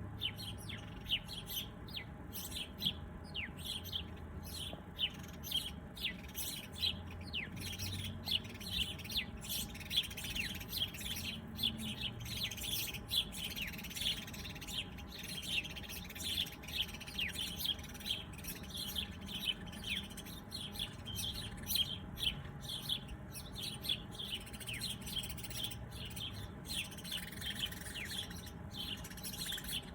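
A flock of small birds chirping busily: many short, quick chirps overlap, several a second, many of them sliding down in pitch.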